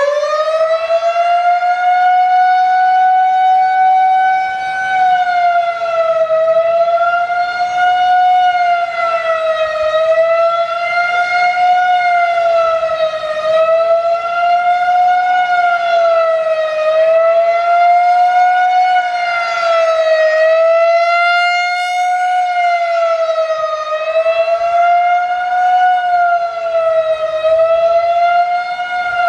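Federal Signal 2001-130 electromechanical outdoor warning siren sounding a fast wail during a siren test. At full pitch it holds a steady tone for the first few seconds, then rises and falls in pitch every two to three seconds.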